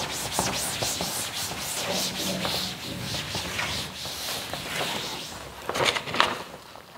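Cloth duster wiping a chalkboard clean in repeated sweeping strokes, a steady rubbing scrape, with a few louder sharp sounds near the end.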